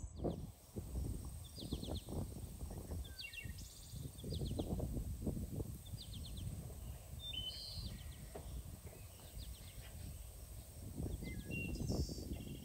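Small birds singing in short, repeated chirping phrases, over low, irregular rustling and handling noise.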